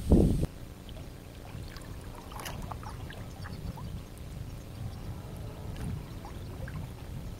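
A loud rush of noise cuts off abruptly about half a second in. After it, quiet water splashing and trickling from an inflatable kayak's paddle strokes, with scattered small drips and splashes, most of them around two to three seconds in.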